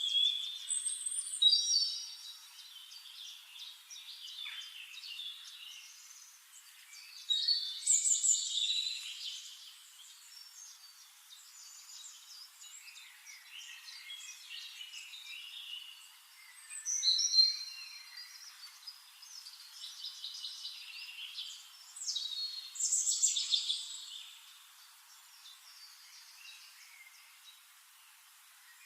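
Songbirds singing: bursts of varied, warbling song phrases lasting a second or two, about five times, with quieter chirps in between.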